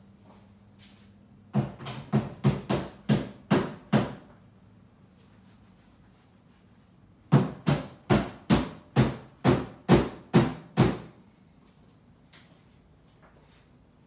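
Two runs of sharp knocks on a hard surface: about eight in quick succession, two to three a second, then after a pause of about three seconds about nine more at a similar pace.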